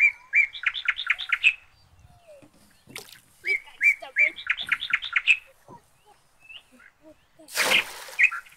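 A songbird sings the same short phrase twice: a few even notes, then a quicker run of notes. Just before the end comes a short splash of water.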